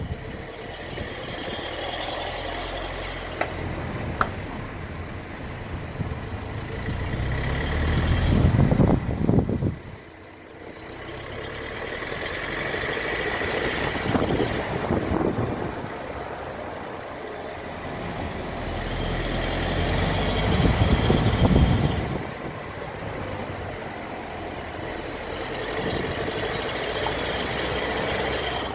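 2014 Mercedes-Benz GLA200 making a loud noise under acceleration, swelling to a peak and falling away sharply several times, loudest twice. The owner takes the noise for abnormal in a car with under 30,000 miles.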